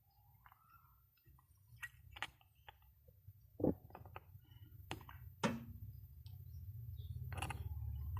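Scattered sharp clicks and taps of small hard objects being handled, over a low hum that grows steadily louder toward the end.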